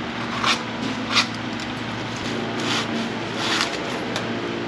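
Hand blade cutting and scraping cured expanding foam back to the line of a holed fibreglass boat hull: about five short scraping strokes at uneven spacing, over a steady low hum.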